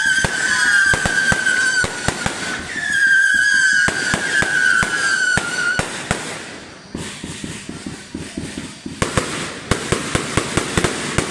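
Fireworks going off: two long whistles, each falling slightly in pitch over about three seconds, among sharp bangs and pops, then a fast run of crackling near the end.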